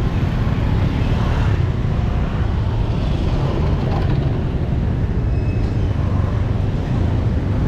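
Steady traffic noise of a busy street: a continuous low rumble of passing vehicle engines and tyres.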